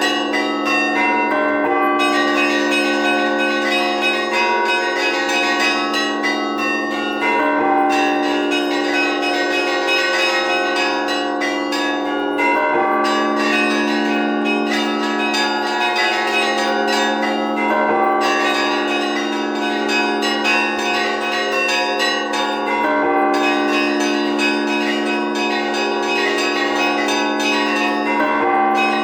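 Orthodox church bells of Kharkiv's Annunciation Cathedral rung by hand in an improvised peal: several bells sound together in overlapping strokes, their tones ringing on under one another. The pattern repeats about every five seconds.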